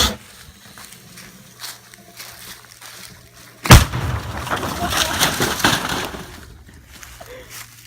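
A large Neptune rocket firework going off with a single sharp bang about four seconds in, followed by a couple of seconds of hissing, crackling noise that then fades.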